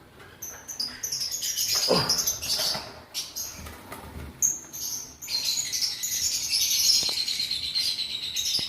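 Lovebird, just caught, giving rapid high-pitched chattering calls in bursts, then a longer unbroken run of chatter in the second half.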